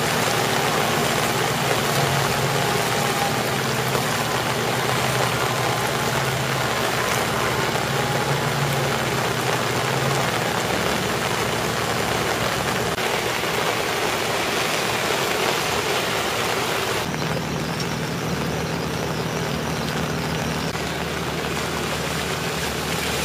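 Cars driving slowly through deep floodwater: engines running low with water swishing and spraying around the wheels, over a steady hiss of rain and running water.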